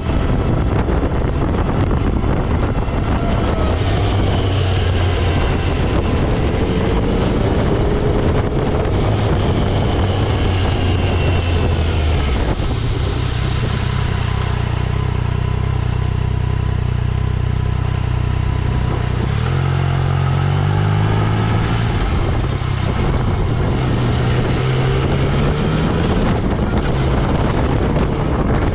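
Motorcycle engine running while riding, heard close up from a bike-mounted camera. The engine note holds steady, then rises twice in the second half as the throttle opens.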